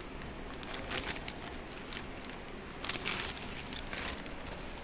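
Anti-static plastic bag crinkling and rustling as a motherboard is handled and slid out of it, in irregular bursts about a second in and again, louder, around three seconds in.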